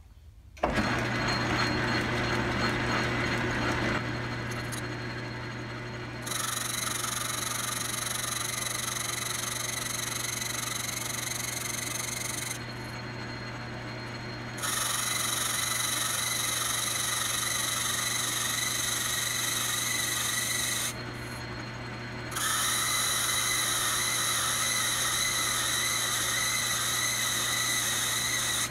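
Logan 10-inch metal lathe running and turning down a brass rod: a steady motor hum starts abruptly about a second in, with three long stretches of higher-pitched cutting noise as the tool takes passes, easing off between them.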